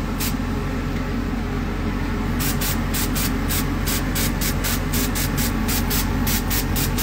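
Badger airbrush spraying colored cocoa butter into a chocolate mold: a continuous hiss of air over a steady low hum. From about two and a half seconds in, the hiss pulses rapidly, about four times a second.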